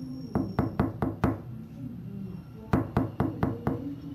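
Knocking on a door: two quick runs of about five knocks each, roughly a second and a half apart.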